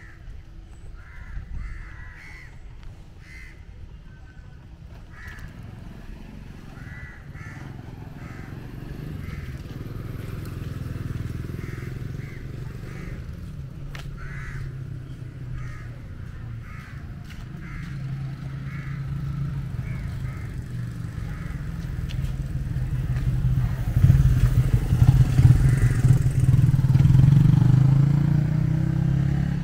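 A motor vehicle engine running close by, growing steadily louder and loudest in the last few seconds. A run of short high-pitched chirps repeats over it for the first part.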